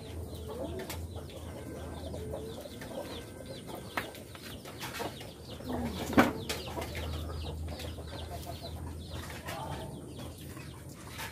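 Chickens clucking in a farmyard, with short calls scattered throughout and a louder squawk about six seconds in. Now and then a few sharp knocks and clinks of dishes being handled.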